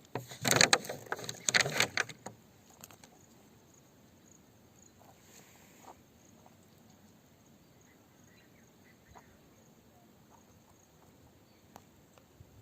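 A dense burst of clattering and scraping for about a second and a half, then faint background with a few scattered small clicks.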